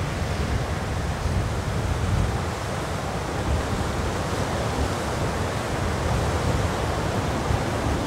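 Cold northwest winter wind blowing steadily, a rushing noise with a low rumble where it buffets the microphone.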